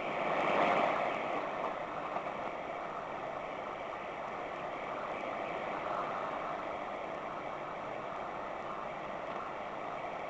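Sangean ATS 909 shortwave receiver tuned to 6300 kHz, putting out a steady rushing noise with no programme audible, swelling louder for about a second near the start.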